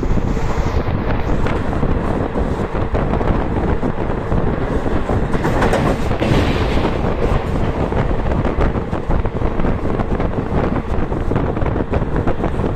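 Running noise of a moving passenger train heard from an open window of the coach: a steady, loud rumble of wheels rolling on the rails, with wind blowing across the microphone.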